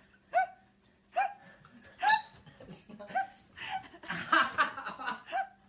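A puppy giving short, high yips, four of them about a second apart, during rough play. Near the end they give way to a busier run of yelping mixed with human laughter.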